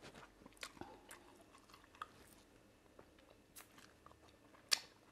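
Faint close-up eating sounds: a man chewing and picking at food with his fingers, small wet mouth clicks and smacks, with one sharper smack near the end as he sucks his fingers.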